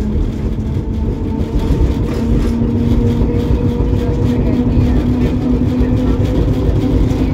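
Prototype FVV CSM articulated tram running along the track, heard from inside: a continuous low rumble of wheels on rails under a steady motor whine that climbs slightly in pitch from about four seconds in.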